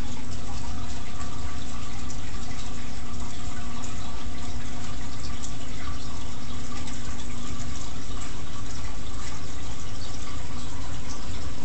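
Steady rush and bubbling of water circulating in a home aquarium, with a low steady hum underneath.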